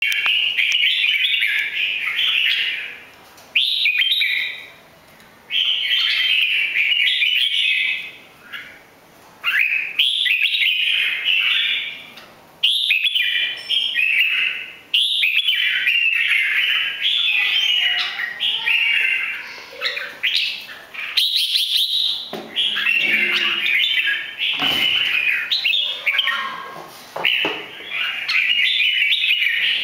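Caged red-whiskered bulbul singing: a string of quick chattering, warbling phrases, each a second or two long, separated by short pauses that grow fewer in the second half.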